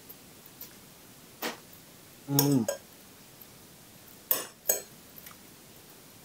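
Metal fork and spoon clinking and scraping against a bowl of fried instant noodles, with a few short eating sounds scattered through. A brief low hum from the eater comes about two and a half seconds in.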